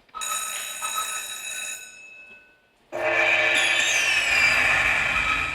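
Autumn Moon slot machine playing electronic chimes as the reels spin, fading out. About three seconds in, a louder sustained electronic fanfare with sweeping tones starts suddenly, the machine's sound for triggering its Hold & Spin bonus.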